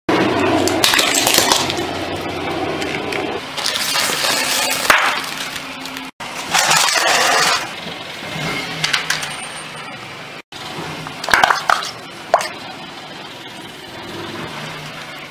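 A car tyre rolling slowly over small toys and then a row of small paint tubes, crushing them with crunching and sharp cracking of plastic and metal. The sound comes in three separate short takes, each cut off suddenly.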